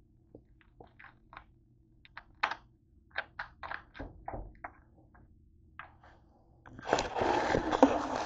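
Scattered light clicks and taps, then about seven seconds in a loud rustling, crackling noise of the camera being handled and moved.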